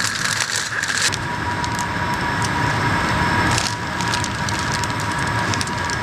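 Plastic film rustling and crinkling as it is handled, louder in the first second and again briefly near the middle, with small crackles. Behind it runs a steady high machine hum.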